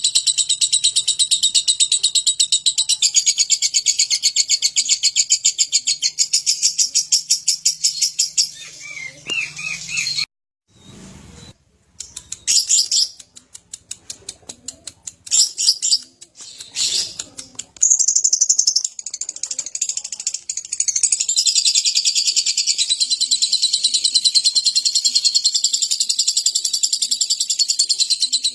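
Lovebird's 'ngekek': a long, very rapid, shrill chattering trill. It breaks off about eight seconds in, comes back in a few short bursts, and runs on unbroken again from about eighteen seconds.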